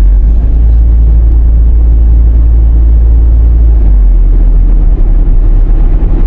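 Steady low rumble of a vehicle driving slowly, heard from inside: engine and road noise, easing off slightly about four seconds in.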